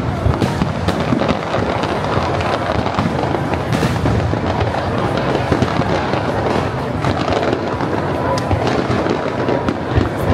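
Fireworks display bursting without a break: a dense run of bangs and crackles, with a sharp report about four seconds in and a deep thump near the end.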